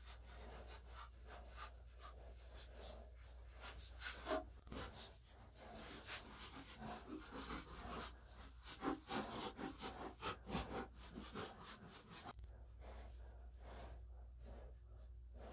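Plastic spreader scraping and smoothing filler onto a lathe's cast-iron body, a run of irregular, faint rasping strokes, busiest in the middle and thinning out near the end, over a steady low hum.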